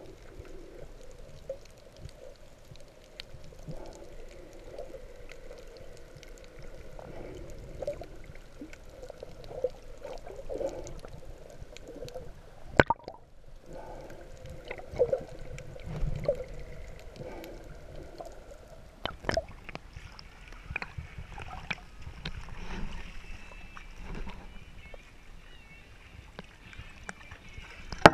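Underwater sound picked up by a camera below the surface: muffled water movement and bubbling, with scattered sharp clicks throughout.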